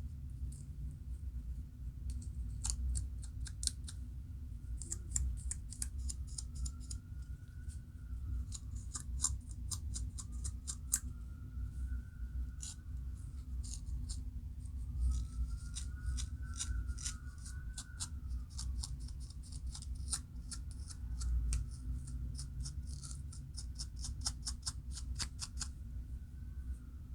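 Fingernails or a tool scratching the scalp among locs to lift dandruff flakes: runs of rapid, crisp scratch strokes with short pauses between them.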